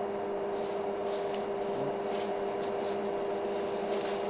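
African elephant browsing in the bush: leaves rustling and twigs snapping in a few short crackles, over a steady hum.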